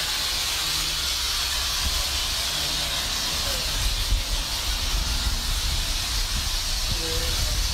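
Pressure washer lance spraying water onto a foam-covered car: a steady hiss of spray with a low rumble underneath.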